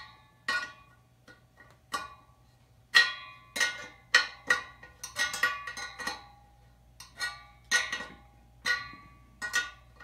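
Spoke wrench clinking against the steel spokes and nipples of a freshly laced motorcycle wheel as the spokes are tightened, a dozen or so sharp metallic clinks at irregular spacing, each with a short ring from the tensioned spokes.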